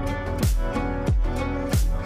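Background music with a steady beat: a deep bass drum that drops in pitch about every two-thirds of a second, under sustained held notes.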